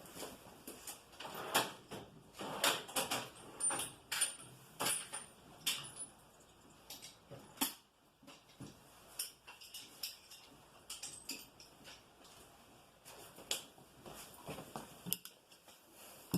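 Small metal tools clinking and clattering while someone rummages for a nut driver: a busy run of clicks and knocks in the first several seconds, thinning to scattered clinks later.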